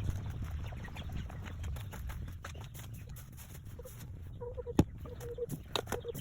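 Chickens clucking in a coop, with rustling and handling clicks and one sharp click a little before the end.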